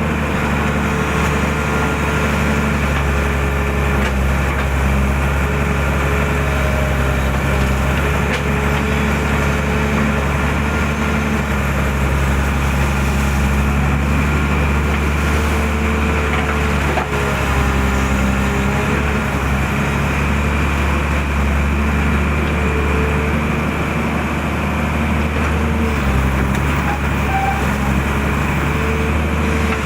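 Excavator's diesel engine running steadily at working revs, its pitch dipping slightly now and then as it takes load.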